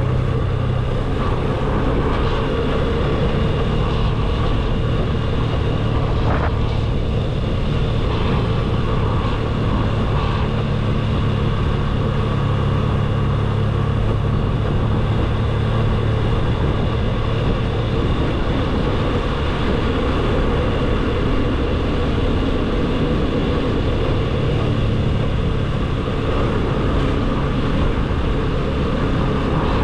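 Motorcycle engine running at a steady, even cruise, heard from the rider's seat, with a constant rush of riding noise.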